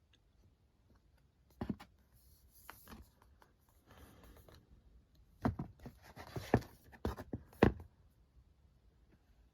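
Paperback manga volumes being handled: soft sliding and rustling of the books, with a series of taps and knocks as they are set down and knocked against each other, most of them in the second half.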